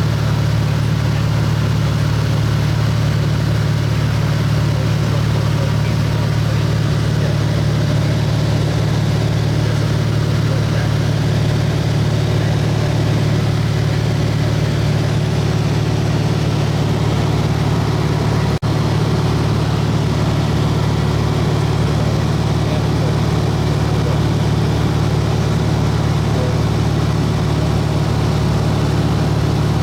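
Steady drone of an airplane's engine heard from inside the cabin, holding an even low pitch throughout, with one momentary dropout about two-thirds of the way through.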